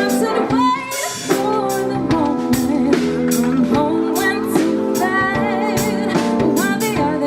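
Live band playing a song: a lead singer over drum kit, bass and held chords, with drum hits at a steady beat.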